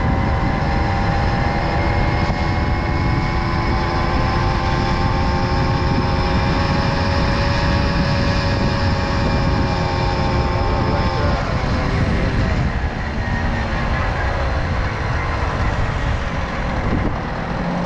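Tomos Silver Bullet moped's small two-stroke engine running at a steady pace, its pitch dropping from about eleven seconds in as it slows, over a heavy rumble of wind on the microphone.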